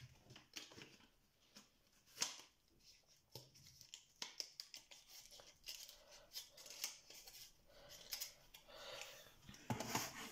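Faint scattered clicks and rustles of plastic and cardboard eyeshadow palettes being handled, growing louder near the end as a palette is set down on the desk.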